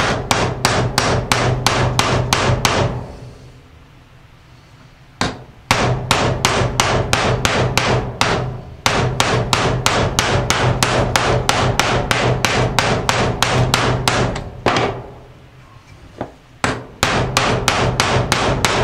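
Ball-peen hammer striking an old bearing used as a driver, pounding a new sealed wheel bearing into a Polaris Outlaw's aluminum rear carrier housing. Quick metal-on-metal blows, about four a second, come in three long runs with two short pauses.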